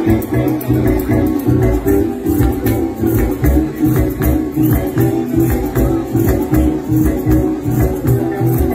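Llanero joropo music at a quick, steady beat: a plucked harp and strummed strings over a moving bass line, with maracas shaken throughout.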